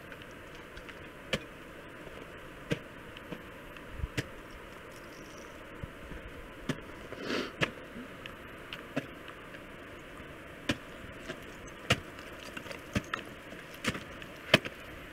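Ice axe and crampon points striking glacier ice as a climber works up out of a crevasse: sharp, irregular strikes about every second or two, the loudest near the end, over a steady hiss.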